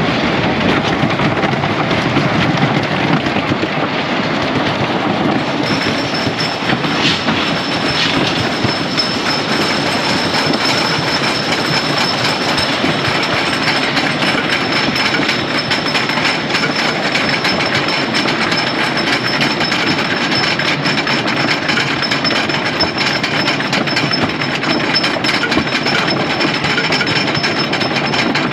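Wooden roller coaster train rolling out of the station and climbing the chain lift hill, clattering steadily with a dense run of clicks. A thin, steady high whine joins the clatter about six seconds in.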